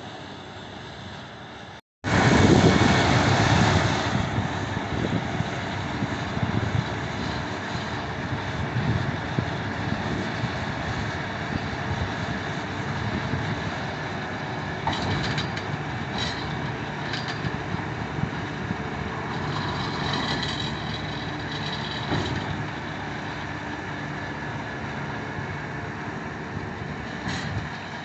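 Goweil round baler working behind its tractor: a steady mechanical drone of engine and machinery. It starts abruptly about two seconds in and is loudest for the first couple of seconds after that.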